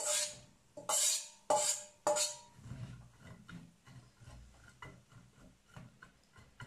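A metal container knocked four times on a Saladmaster stainless electric skillet to shake out chopped vegetables, each knock ringing briefly. After that, a metal spatula scrapes and turns the carrot and cabbage in the pan, several light scrapes a second.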